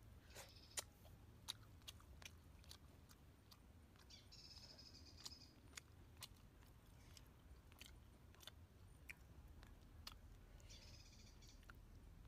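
Faint close-up chewing and mouth clicks while eating fried fish, with scattered sharp ticks. Two brief high calls sound in the background, one about four seconds in and one near the end.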